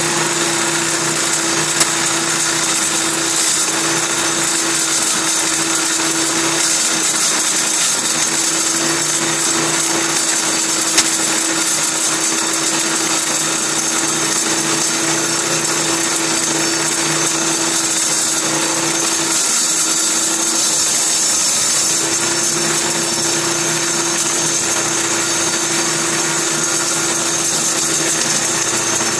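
Table saw running steadily with a 7 1/4 inch blade cutting out the inside of a spinning wooden bowl held in a jig, a continuous whine and hiss of the blade chewing wood over a steady hum.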